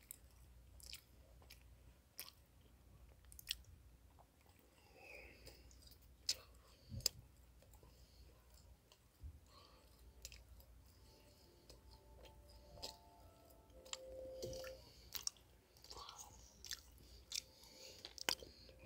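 Faint chewing of food close to the microphone: soft mouth sounds with scattered small clicks, some louder than others.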